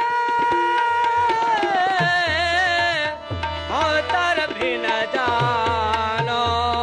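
Sikh kirtan music without words: tabla strokes under sustained harmonium notes, with a melody line that slides and wavers between notes.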